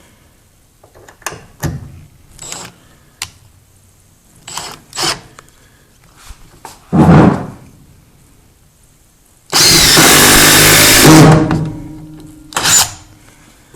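Porter-Cable 20V cordless impact driver sinking a 3-inch drywall screw into a 2x4: a few handling clicks, a short burst about seven seconds in, then a loud hammering run of nearly two seconds about ten seconds in that drives the screw fully home.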